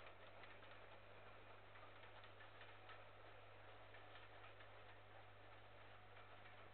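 Near silence: a faint steady low hum with faint scattered clicks and hiss, and no sound from the train in the picture.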